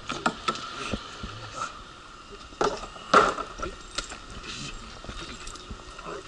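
Wheelchair rolling over a platform ramp: its frame and wheels rattle and clack, with sharper knocks every second or so, the loudest about three seconds in, over a faint steady whine.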